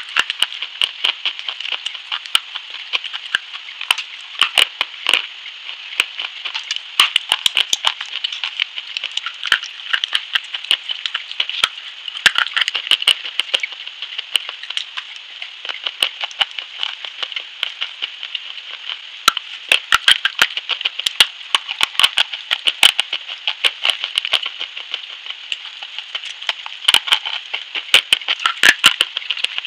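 Close-up crunching and cracking as a brittle, chalk-like stick is bitten off and chewed: many sharp, irregular cracks over a steady hiss.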